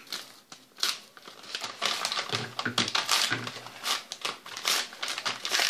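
Paper envelope crinkling and rustling in a quick run of short, sharp rustles as it is cut open with scissors and pulled apart by hand.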